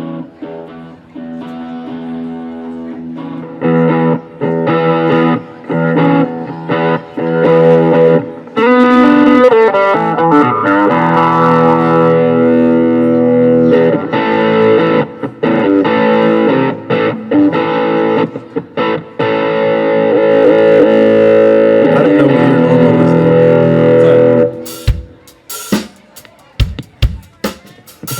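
Electric guitar played on its own, strummed chords and riffs with sliding notes, softer for the first few seconds and then loud. The guitar stops shortly before the end, and a few scattered drum hits follow.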